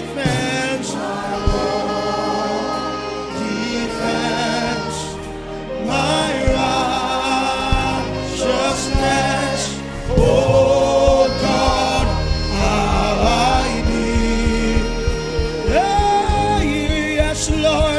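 Gospel music: a choir singing with instrumental backing, the bass fuller and louder from about ten seconds in.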